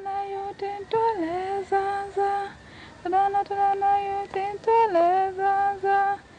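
A woman singing a slow, mournful-sounding melody of long held notes with slides between them, broken by short pauses.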